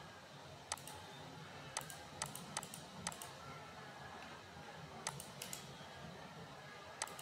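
Computer mouse buttons clicking: about nine short, sharp clicks spread unevenly, several in quick press-and-release pairs, with a gap in the middle.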